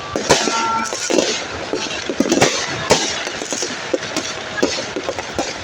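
New Year fireworks and firecrackers going off all around: a dense, irregular run of cracks and pops over a steady hiss. The sharpest bangs come about a quarter second in and at around two and a half and three seconds.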